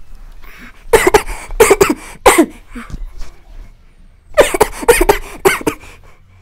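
A man coughing in two fits of several coughs each, one about a second in and the other a little past the middle.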